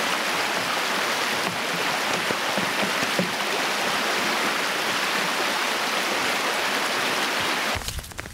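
Creek water running steadily, with a constant rushing sound that cuts off abruptly near the end.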